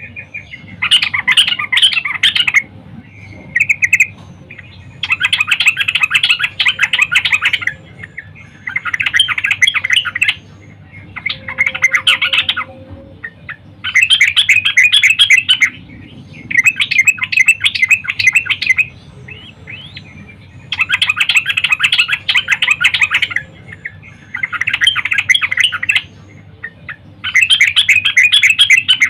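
Yellow-vented bulbul singing: a string of rapid chattering phrases, each one to two and a half seconds long, repeating about every three seconds with short pauses between. This is a female's call, the kind used to lure male bulbuls into song.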